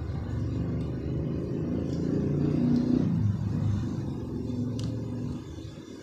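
A motor vehicle's engine running nearby with a low, shifting hum that fades away near the end, with a few faint clicks.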